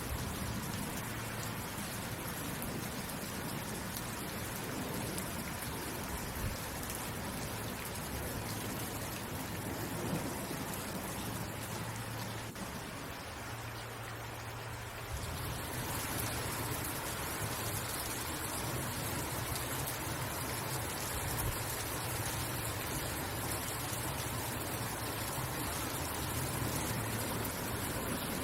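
Steady rain falling, an even hiss of many drops. It dips slightly a little under halfway through, then returns a little louder.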